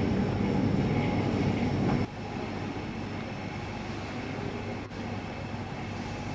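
Airport terminal ambience: a steady low rumble and hum, which drops to a quieter, even hum about two seconds in.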